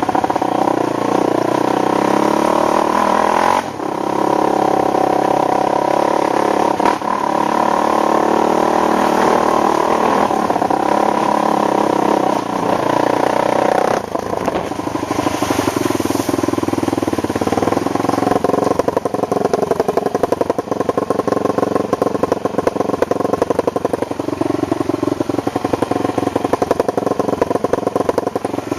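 ATV engine running with the revs rising and falling as it rides. About halfway through it drops to a lower, pulsing note.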